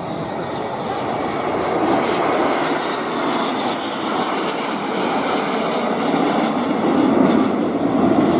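Formation of military aircraft, mostly jet trainers, flying overhead. Their engine roar grows gradually louder.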